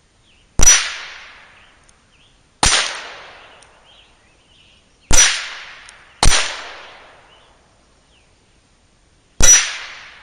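Five .22 LR handgun shots at irregular intervals, each a sharp crack trailing off over about a second.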